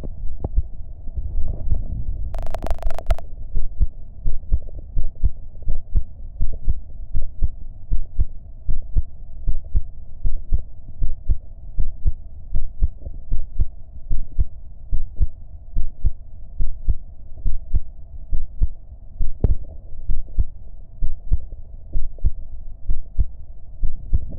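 Human heartbeat picked up close: a steady, even run of dull thumps. A brief crackle sounds about two and a half seconds in.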